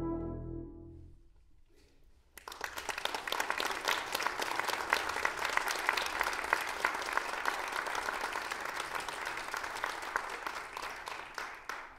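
The last sustained chord of a brass ensemble dies away in the hall, and after a brief hush audience applause breaks out about two and a half seconds in, continuing steadily and fading near the end.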